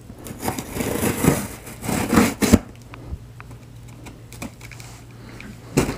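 Shipping box and packaging being opened and handled: rustling and scraping for the first two or three seconds ending in a sharp snap, a few light ticks, then a thump near the end.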